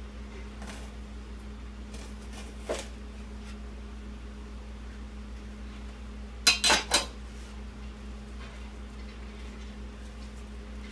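Kitchen chef's knife on a plastic cutting board while an onion is cut: a few faint knife knocks, then four sharp clinks in quick succession a little past halfway, over a steady low hum.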